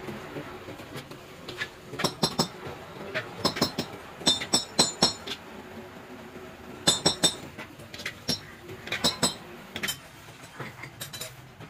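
Loose steel engine bolts and small metal parts clinking against each other as they are handled, in short runs of sharp clinks several times.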